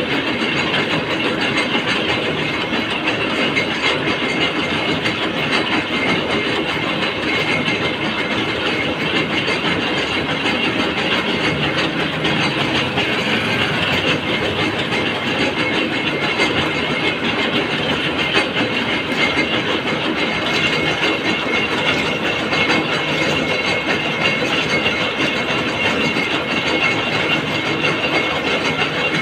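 Gear-cutting machine running steadily: a continuous mechanical noise with a couple of faint steady high tones, and no clear breaks.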